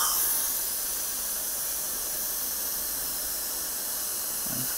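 Dental surgical suction hissing steadily at the extraction site, a high, airy hiss that holds even throughout.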